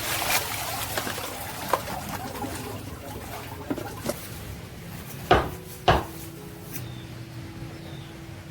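Kitchen clatter: a few light knocks of cookware, then two sharp, loud knocks about five and six seconds in.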